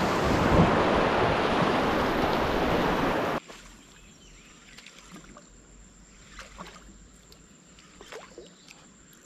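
Loud rushing noise of river water and wind for about three and a half seconds, cutting off suddenly. Then a quiet background with a faint steady high insect whine and a few faint chirps.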